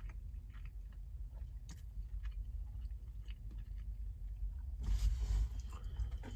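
A person chewing a mouthful of breakfast taco made of egg frittata and hash brown in a tortilla, with small wet mouth clicks over a steady low cabin rumble. About five seconds in there is a brief rustle as the takeout packaging is handled.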